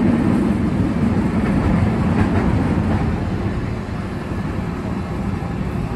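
Kumamoto City Tram 8500-series tramcar with nose-suspended (吊り掛け) traction motors running on street track, heard from the driver's cab. Its low motor-and-gear hum is strongest at first and fades over the first few seconds as the tram slows toward a stop.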